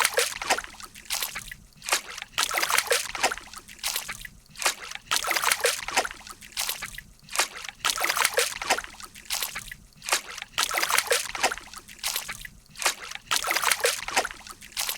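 Water sloshing and splashing in repeated short bursts, roughly one or two a second.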